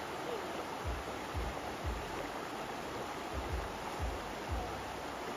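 Creek water rushing steadily over rocks in shallow riffles, with a low beat of about two thumps a second underneath.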